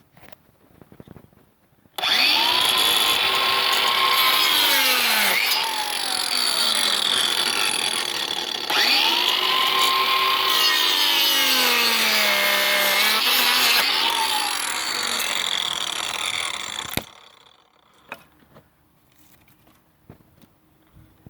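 Cordless angle grinder with a pruning disc cutting through a one-inch branch. The motor starts about two seconds in, its whine sagging in pitch as the disc bites into the wood and recovering, twice over, then stops suddenly near the end.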